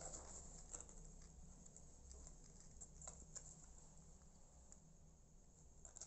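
Near silence: a low steady hum with faint, scattered small clicks and soft rustles.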